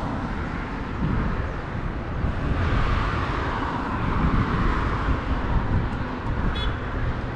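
A car passing on the road: tyre and engine noise swelling a couple of seconds in and fading away, over a steady low rumble.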